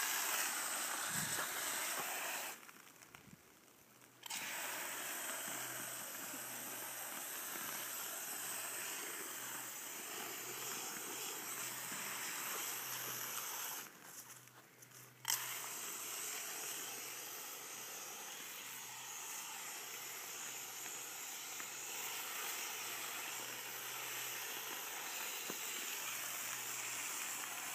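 Garden hose spraying through a hose-end foam sprayer bottle, a steady hiss of water spray. It cuts out twice briefly, about two and a half seconds in and again about halfway through, each time starting up again.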